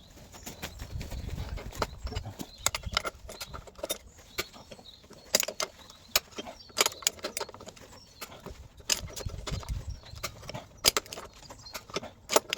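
Metal hand tools clinking and knocking irregularly against rusty suspension fixings as they are worked loose, with a low rumble of handling in a couple of places.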